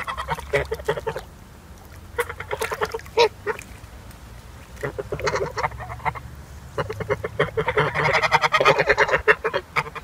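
White and grey domestic geese calling: runs of rapid, repeated honks with short pauses between them, the longest and loudest run in the second half.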